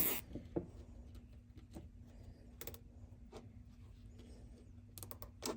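Scattered sharp clicks and knocks of parts and tools being handled during work on a car's engine bay, with a quick run of clicks near the end, over a faint steady hum.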